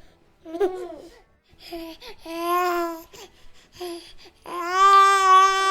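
Baby cooing and babbling: a few short vocal sounds, a longer rising-and-falling coo about two and a half seconds in, and a long held coo near the end.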